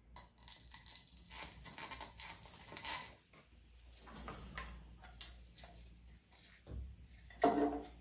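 Hands handling a clear plastic tube that holds a bamboo matcha whisk: plastic clicks and rustling as the lid comes off and the whisk slides out. A louder short clack comes about seven and a half seconds in.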